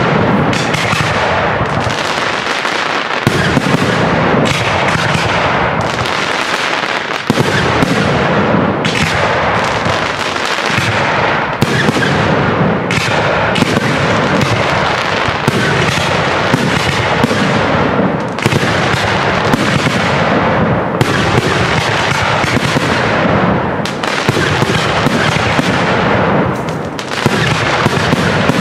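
Aerial firework shells bursting in quick succession, with the bangs running together into a continuous dense crackle.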